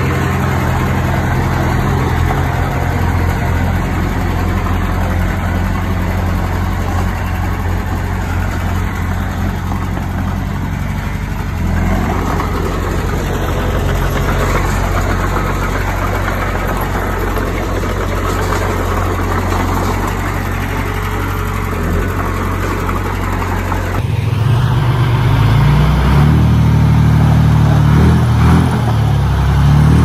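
Diesel engines of a mini bulldozer and dump trucks running steadily. About 24 seconds in, the sound switches abruptly to a louder, higher-pitched engine note.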